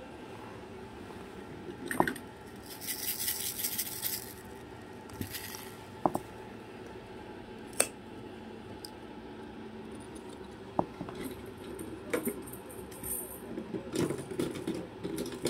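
A cockatoo playing inside a fabric teepee: scattered sharp clicks and knocks with bursts of scratchy rustling, as the bird handles toys and moves about on the fabric.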